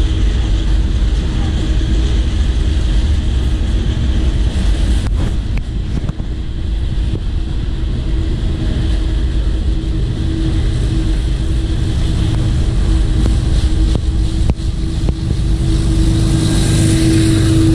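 Freight train rolling past directly below, a steady low rumble of its cars on the rails. A steady hum runs through it and grows louder near the end.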